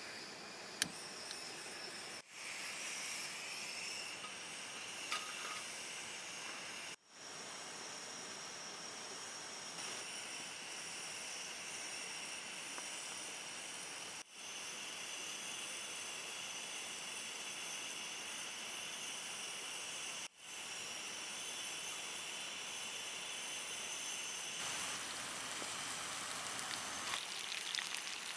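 Gas flame of a portable bottle-top gas stove burning with a steady hiss, after a small click about a second in as the valve is worked. The hiss briefly cuts out four times. Near the end a sizzle of potato slices frying in a cast-iron pan joins in.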